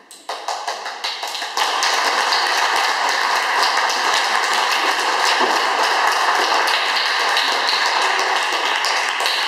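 Audience applauding: scattered claps at first, swelling to full, steady applause about a second and a half in.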